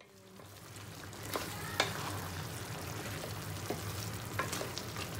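Wooden spatula stirring moringa pods and okra in a frying pan of simmering tomato broth: steady bubbling and sizzling with a few sharp knocks of the spatula against the pan. The sound fades in over the first second.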